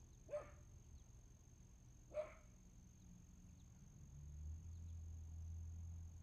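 A dog barks twice, two short barks about two seconds apart, over a faint low rumble that grows louder in the second half.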